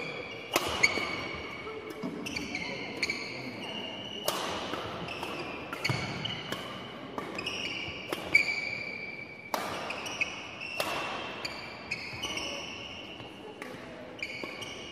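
Badminton doubles rally on a wooden gym floor: a string of sharp racket strikes on the shuttlecock every second or so, with frequent short, high-pitched sneaker squeaks between them as the players move, echoing in a large hall.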